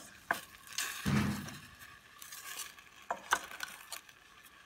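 Wooden spoon stirring frozen berries in a stainless steel saucepan: scattered light clicks and knocks of spoon and berries against the pot, with a brief louder rush of noise about a second in.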